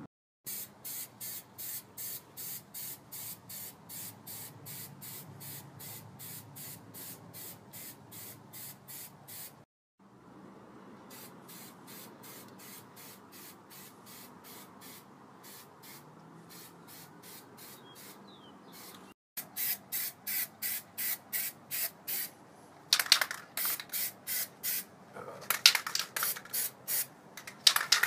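Liner coating being sprayed in short, rapid bursts of hiss, about three a second, growing louder near the end.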